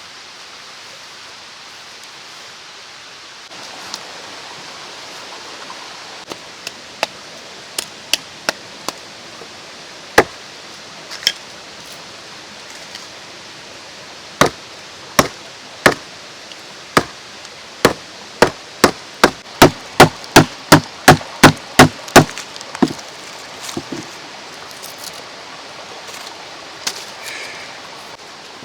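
A series of sharp tool strikes, scattered at first, then a fast run of about three a second from about halfway through, over the steady rush of a mountain stream.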